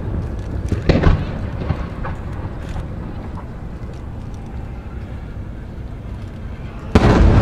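Aerial firework shells bursting: one boom about a second in, then a rumbling echo that dies away. A second, louder boom comes near the end.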